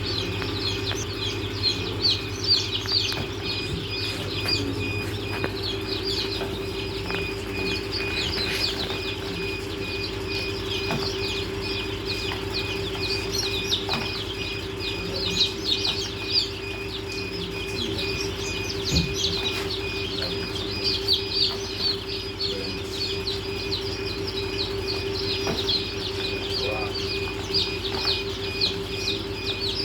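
Many newly hatched Improved Kienyeji chicks peeping non-stop, dozens of short high chirps overlapping, over a steady hum.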